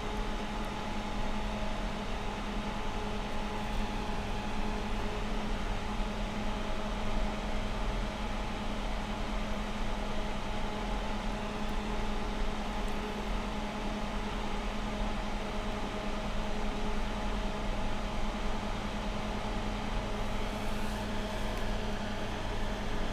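Steady machine hum like a running fan: a low drone with a few faint higher tones held over an even hiss. A few faint ticks near the end.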